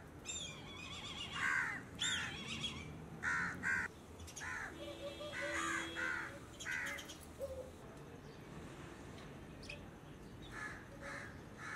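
Crows cawing over and over, a run of short harsh calls that thins out after about seven seconds, with a few more near the end.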